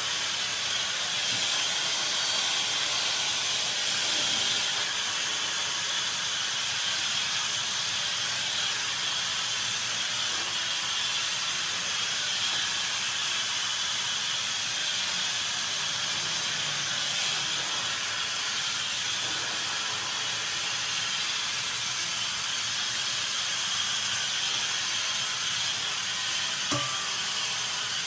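Handheld hair dryer running steadily during blow drying, a continuous airy hiss with no change in speed. A small click near the end.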